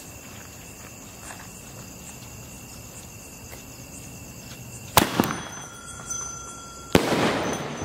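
A small 'Penta' sky-shot firework tube: the fuse burns quietly for about five seconds with crickets chirping, then two sharp bangs come about two seconds apart. The second bang is followed by a brief crackling hiss.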